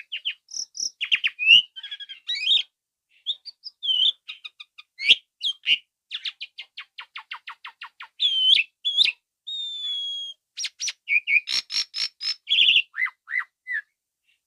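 Asian pied starling (jalak suren) in full, lively song: a long varied run of whistles, chirps and chattering, with a fast rattling series of short descending notes partway through and one held whistle about ten seconds in.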